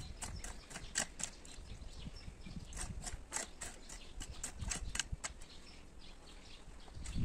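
Garden hoe chopping and scraping through dry soil, an irregular run of short scratchy strikes, several a second.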